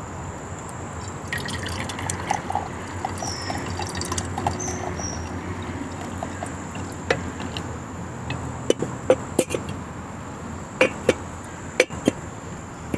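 Water dripping and trickling, with several sharp clicks and knocks in the second half.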